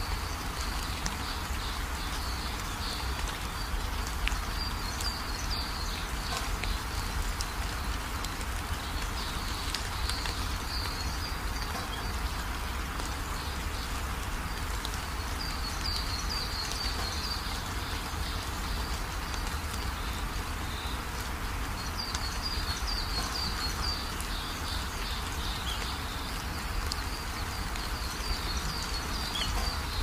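Steady hiss of falling rain, with short bouts of rapid, high-pitched chirping coming back every several seconds.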